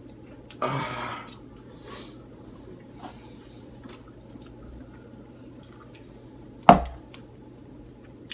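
Small mouth and breath noises from a man eating very hot chicken wings: a short breathy noise near the start and a fainter hiss a second later. About six and a half seconds in there is a single sharp knock, the loudest sound, and a steady low hum runs underneath.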